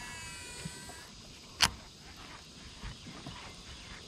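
Baitcasting reel on a cast and retrieve: a thin whir that falls slowly in pitch for about a second, then one sharp click about a second and a half in, then faint ticking as the reel is cranked.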